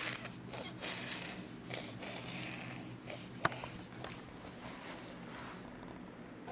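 A baby's breathy snuffling and snorting in short noisy bursts, with a single sharp click about three and a half seconds in.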